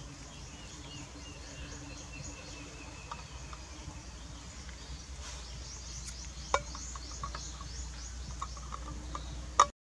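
Insects chirping in a steady, high-pitched pulsing trill, with a few sharp metallic clinks of tin cans knocking together as they are stacked; the loudest clinks come about six and a half seconds in and just before the end.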